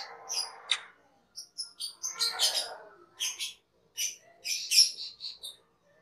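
Asian glossy starling (cucak keling) calling: a run of short, sharp, high chirps in quick bursts with brief pauses, and a harsher, raspier note about two seconds in.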